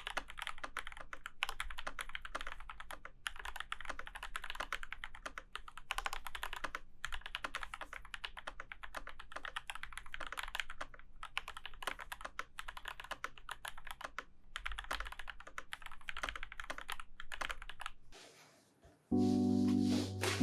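Continuous fast typing on a Womier Retro M87 mechanical keyboard, a dense run of irregular key clicks and clacks. The typing fades out near the end, and background music starts about a second later.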